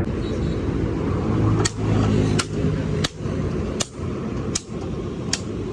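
Six evenly spaced hammer blows on metal with a short ring, about one every three-quarters of a second, starting a second and a half in, over a steady low traffic and engine rumble.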